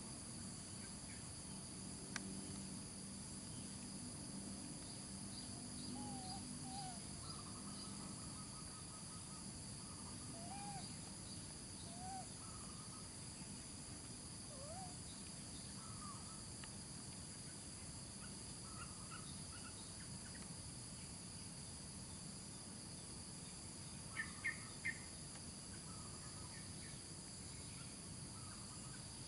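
Steady high-pitched insect chorus, with scattered short faint calls and three quick sharp chirps in a row near the end.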